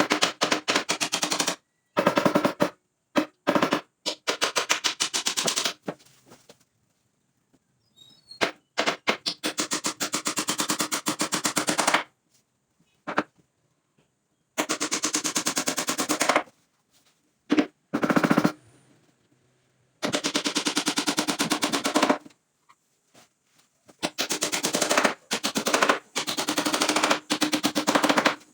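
Cordless impact driver driving screws into wood in about ten bursts of one to four seconds. Each burst is a fast, even rattle of hammering clicks over the motor's hum, stopping abruptly when the trigger is let go.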